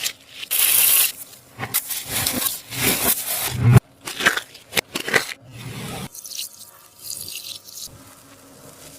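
A sticky taba squishy is pressed and squeezed by hand, making a run of uneven crackly, tacky noises. The noises are softer in the last three seconds.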